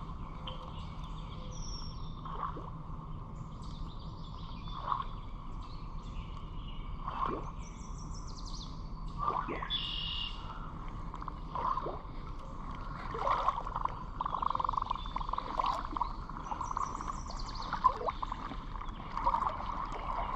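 A topwater plopper lure being reeled across creek water, its spinning tail churning and plopping, with the sound getting denser and steadier in the second half. Birds chirp over it.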